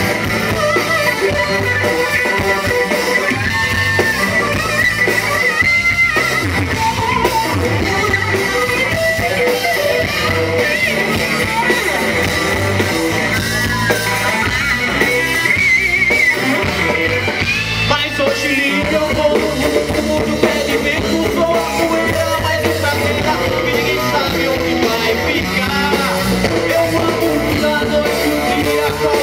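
Live rock band playing an instrumental passage: an electric guitar lead over bass and drum kit.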